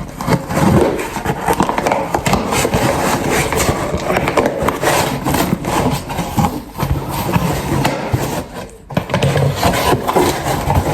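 Parcel packaging being handled and opened: continuous rustling and scraping with many small clicks.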